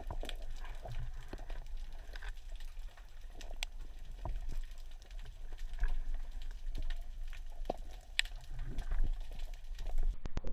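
Underwater ambience: a steady low rumble with scattered sharp clicks and crackles.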